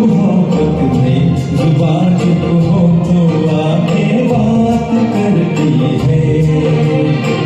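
Music: a Hindi film song sung to a karaoke backing track, with a singer's voice over steady rhythmic accompaniment.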